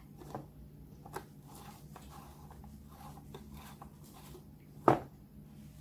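Salt sprinkled by hand onto a raw trout fillet on a plastic cutting board: faint scattered ticks over a low steady hum, with one sharp tap about five seconds in.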